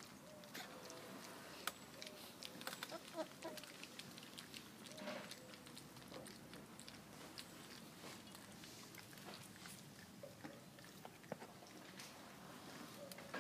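Faint lapping, chewing and small clicks of four-week-old Labrador pups eating soft food from a stainless steel bowl and pattering around it, with the clicks thickest in the first few seconds.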